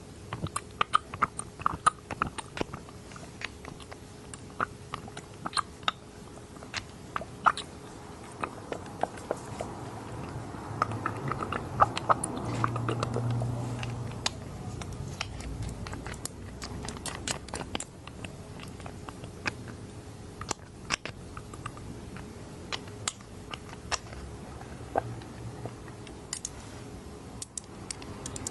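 Close-miked dropper sounds: many quick, crisp clicks and wet squishing from a dropper being squeezed and handled, thickening into a denser, louder stretch of squelching about halfway through.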